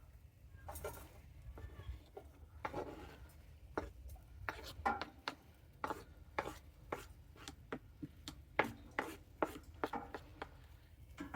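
Knife chopping food on a cutting board: a few scattered strokes at first, then a steady run of sharp chops at about two a second.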